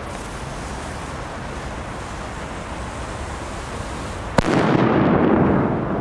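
A firecracker goes off with a single sharp bang about four seconds in. A loud rumbling echo follows and dies away over about a second and a half.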